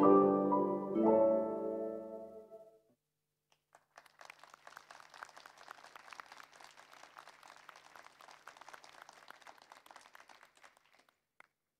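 The last plucked, chiming notes of a short tune ring and fade out within the first three seconds. After a brief gap, an audience claps faintly for about seven seconds.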